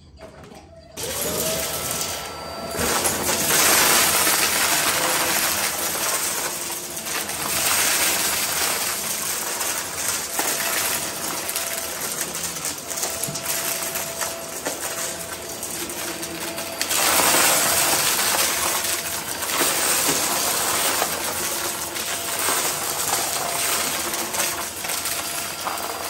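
Hart Pro upright vacuum starting up about a second in, its motor pitch rising to a steady hum. It then sucks up crunchy mixed debris from a carpet, the bits crackling and rattling up through the head into the dust bin, loudest about three seconds in and again past halfway.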